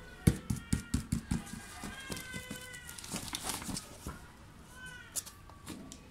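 Kitten meowing: a high, drawn-out meow about two seconds in and a shorter one near five seconds. A quick run of sharp knocks and rustles in the first second and a half is the loudest sound.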